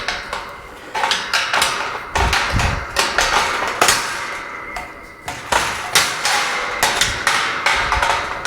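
Repeated irregular sharp metal knocks and clanks, several a second, from the gate's hinge hardware being worked while the gate is adjusted on its post.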